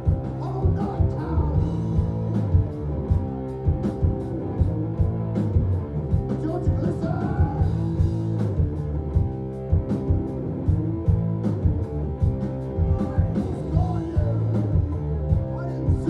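A live heavy rock band playing through a club PA: distorted electric guitar and bass over a steady drum beat, with a singer's voice coming in and out over it.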